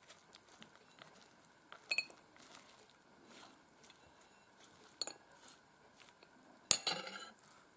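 Metal spoon scraping seeds and soft baked pulp out of a spaghetti squash half, with a few light clinks of the spoon against a plate, the loudest near the end.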